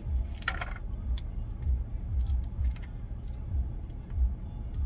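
Low rumble of a Chevrolet Suburban's engine running, heard inside the cabin. It comes with a brief slurp from a small cup about half a second in and faint clicks of plastic cups being handled.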